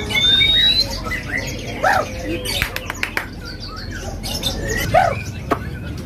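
Several caged songbirds chirping and whistling at once, short overlapping calls with a rising whistle near the start, two arching calls about two and five seconds in, and a few sharp clicks.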